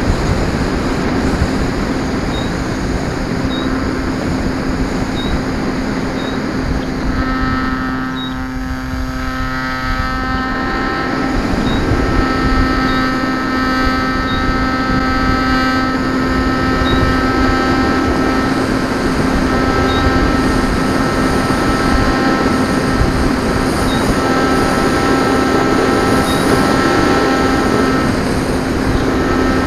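Motor and spinning propeller of an E-flite Apprentice RC plane in flight, heard from a camera mounted on the airframe: a steady drone mixed with rushing air. Around eight to ten seconds in, the sound briefly drops and thins, then comes back.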